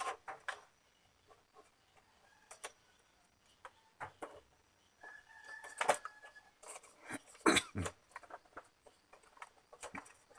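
Scattered clicks and knocks from screws and plastic printer parts being handled with a screwdriver. A rooster crows in the background about five seconds in.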